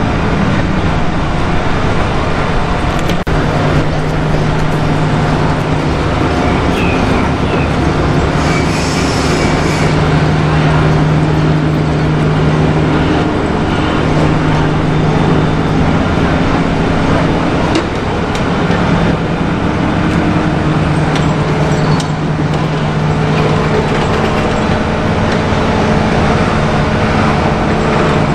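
Heavy diesel engine running steadily at a loud, constant level, its low hum wavering slightly now and then. A few light knocks are heard, and a brief hiss comes a little after eight seconds.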